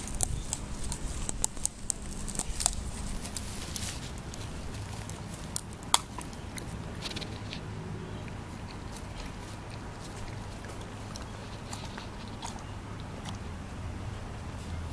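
A dog moving about, with scattered clicks and knocks over the first few seconds and one sharp click about six seconds in, over a steady low hum.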